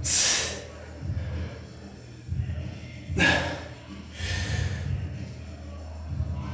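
A man breathing out hard in three sharp, noisy bursts, as from straining, over background music with a heavy low bass.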